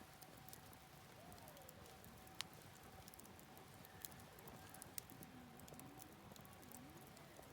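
Wood campfire crackling softly, with a few sharp pops, the loudest about two and a half seconds in, over the faint steady rush of a stream.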